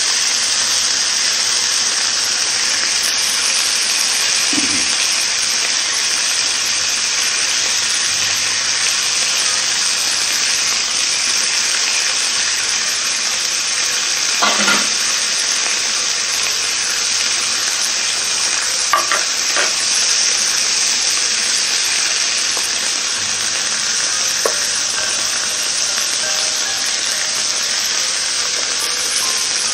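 A T-bone steak, bell peppers and cassava balls sizzling steadily on an open electric contact grill, with a few light clicks now and then.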